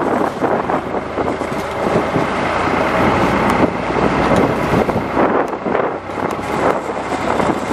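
Wind buffeting the microphone on a small fishing boat under way, over the steady rumble of the boat's engine and water rushing past the hull.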